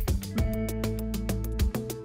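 Background music with a quick, steady beat over held notes and a low bass.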